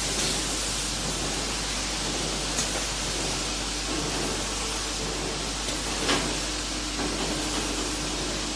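Steady hiss of a running can filling line, with a few light knocks as empty tinplate cans move onto the conveyor, the clearest about six seconds in.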